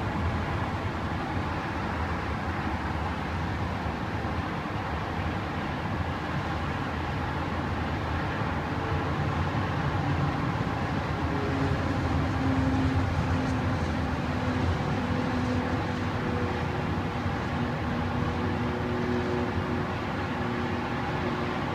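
Distant jet airliner engine noise over a steady city background hum. It grows louder about twelve seconds in, with faint engine tones coming through.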